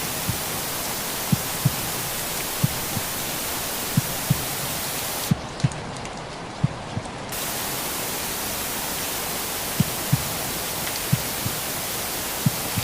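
Steady rain-like white-noise hiss with a slow heartbeat under it: soft double thumps, lub-dub, about every 1.3 seconds. For about two seconds in the middle the hiss turns muffled, its high end gone.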